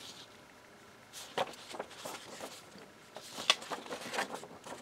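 Paper instruction booklet being handled and opened: faint rustles and crackles of paper in a few short spells, the clearest about three and a half seconds in.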